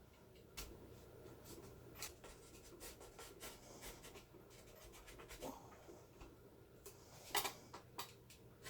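Faint scraping and scratching with scattered sharp clicks: a blade being worked into a particle-board speaker cabinet to pry it apart. A louder pair of clicks comes about seven seconds in.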